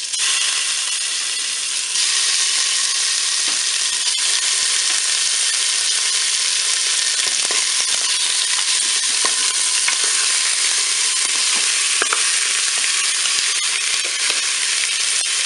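Duck paupiettes sizzling as they brown in hot oil in the non-stick bowl of a Cookeo multicooker in browning mode: a steady frying hiss that gets louder about two seconds in, with a few light knocks of a wooden spatula.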